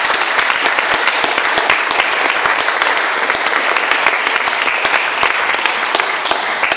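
Audience applauding: a dense, steady clatter of many hands clapping, starting to thin out near the end.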